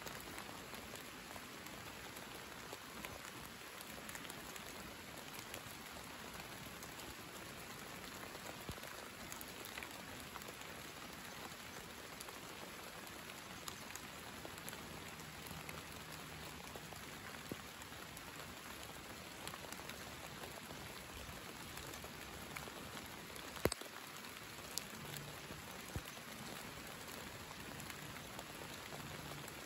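Steady summer rain falling, a continuous hiss scattered with small drop ticks, with a few sharper drips standing out about three quarters of the way through.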